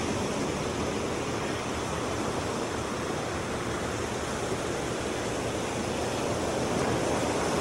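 Steady rushing noise of ocean surf breaking on a beach, with no distinct events.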